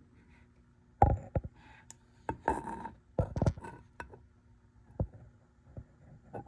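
Irregular light knocks and clicks from hands handling a transmission part and the camera over it, the sharpest about a second in.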